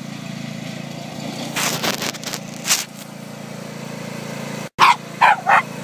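John Deere riding lawn mower engine running steadily at a distance, with a few brief scraping noises around two seconds in. Near the end come three short, sharp pitched calls.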